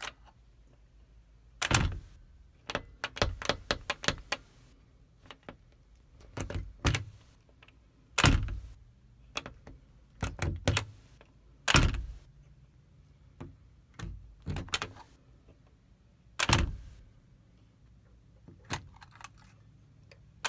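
Metal swing-bar door latch on a wooden door being flipped over and off its catch by hand: repeated sharp metallic clicks and clacks, some single and some in quick rattling runs, every second or two.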